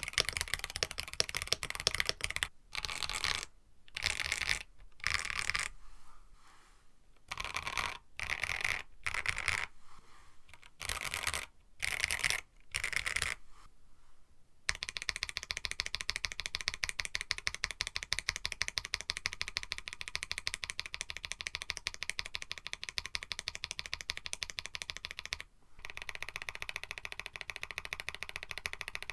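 Typing on a KBD67 Lite mechanical keyboard with an FR4 plate: bursts of rapid keystrokes separated by short pauses. About halfway through, the typing gives way to a fast, evenly spaced percussive beat that leads into music.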